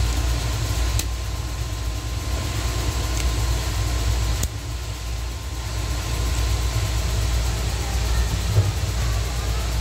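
Steady low rumble of running machinery, with a faint steady whine above it and two sharp clicks, about one second and four and a half seconds in.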